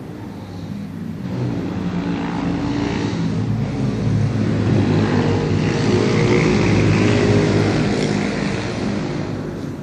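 A passing engine whose sound swells over about six seconds and then fades away, with a steady low hum under the noise.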